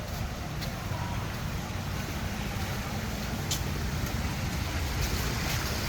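Steady low rumble of a moving vehicle, with a couple of faint clicks.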